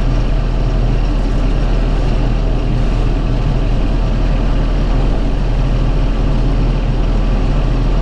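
Tractor engine running steadily, heard from inside the closed cab, as it powers a round baler through its wrap cycle.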